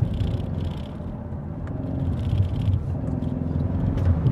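2021 Ford Mustang EcoBoost's turbocharged four-cylinder engine running under load while the car is driven hard through bends, heard inside the cabin as a steady low drone with road noise.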